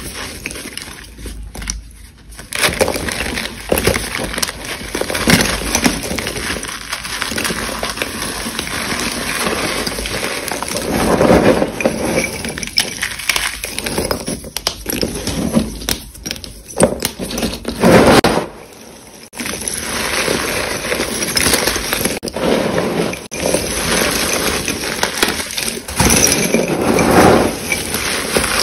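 Reformed chalk and school chalk sticks being crushed and crumbled by hand: continuous dry crunching and crumbling, with louder crunches now and then.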